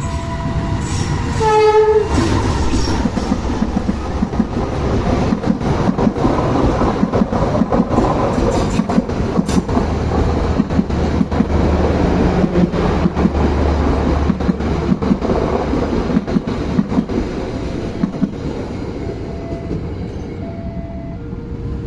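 A short, loud blast of a train's horn about a second and a half in, sounded in answer to a Semboyan 35 sign, the trackside order to sound the horn. The train then passes, with a heavy rumble and the clickety-clack of its wheels over the rail joints, easing near the end. An alternating two-note electronic warning tone sounds at the start and returns near the end.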